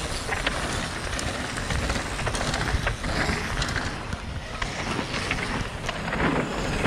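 Cross-country mountain bikes rolling one after another down a rocky dirt section: tyres crunching on gravel and bikes clattering in scattered sharp clicks over a steady rushing background.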